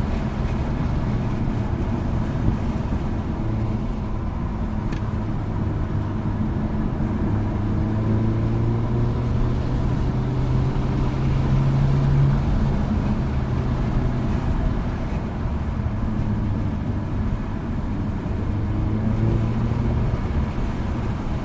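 Hyundai Elantra N's turbocharged four-cylinder engine running hard on a racetrack, with tyre and wind noise. The engine note climbs steadily to a peak about twelve seconds in, drops sharply, then climbs again towards the end.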